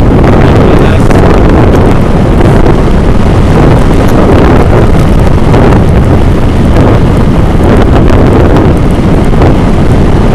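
Heavy, steady wind buffeting on the microphone of a Xiaomi Yi 2K action camera travelling at road speed, a loud low rumble mixed with the noise of the moving vehicle.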